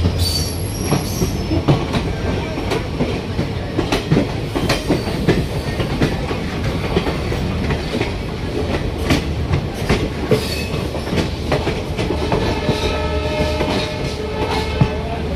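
Passenger train running on the track: a steady rumble with the wheels clicking over rail joints. A steady tone joins in for the last few seconds.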